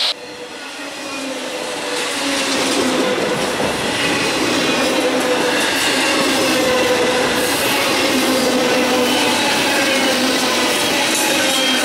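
Double-stack intermodal freight cars rolling past close by: steel wheels running and clattering on the rails with a steady squealing tone from the wheels. It grows louder over the first couple of seconds, then holds steady.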